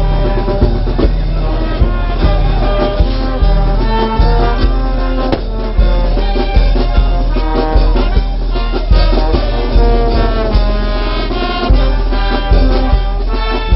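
Loud brass band music with a steady beat, trumpets carrying the melody over drums.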